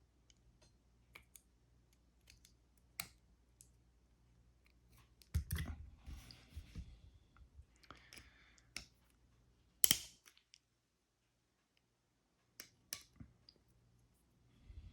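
Small clicks and scraping of a metal tool working at the retaining clip on a plastic door lock cylinder, trying to pry it off. The clicks are scattered and irregular, with short scraping stretches around six and eight seconds in and the sharpest click about ten seconds in.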